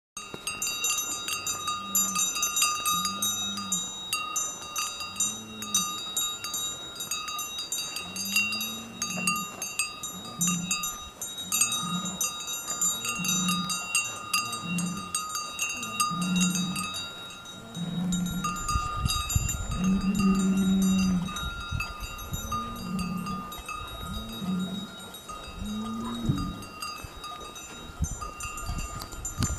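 Several cowbells on grazing cattle clanking and ringing continuously, with many overlapping strikes. A low tone pulses about once a second underneath, and a low rumble comes in for a few seconds in the middle.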